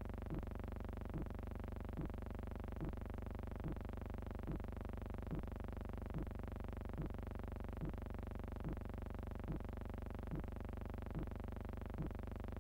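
A steady electronic drone of held tones, with a soft pulse repeating a little more than once a second.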